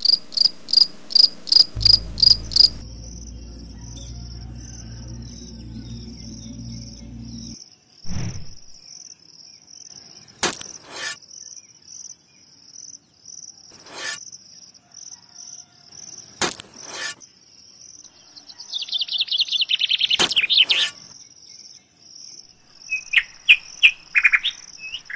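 Insects chirping in a steady, pulsing high trill, with birds calling in quick chirps near the end. A low hum starts about two seconds in and stops about six seconds later, and a few sharp taps sound in between.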